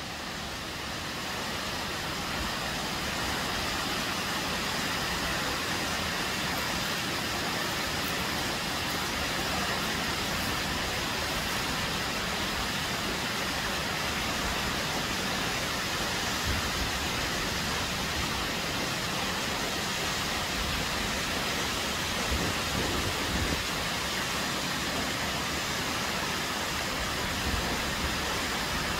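Tall waterfall plunging down a rock cliff: a steady rushing of falling water, swelling slightly over the first couple of seconds and then constant.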